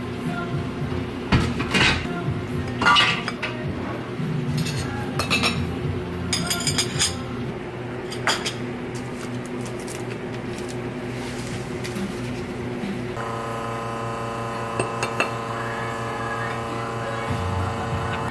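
Tableware clinks and knocks as metal tongs, ceramic saucers and glass mugs are handled while cookies are plated. There are several short clinks in the first half and two more near the end, over background music.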